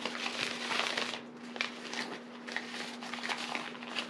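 Rustling and crinkling of a trekking pole's black fabric carrying bag being handled, in uneven bursts, with a steady low hum underneath.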